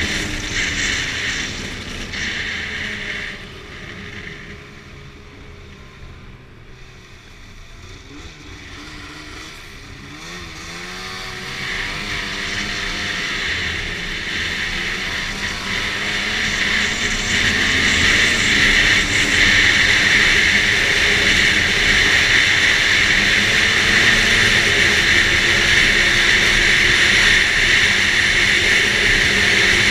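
Arctic Cat F8 snowmobile's two-stroke twin engine under way. It eases off to a low, quieter running for several seconds, then speeds back up around the middle and runs hard and loud to the end.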